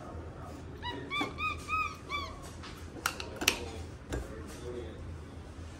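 Capuchin monkey giving a quick run of about five short, high chirping calls, each rising and falling. A couple of seconds later come two sharp knocks, the water bottle being handled on the stone counter.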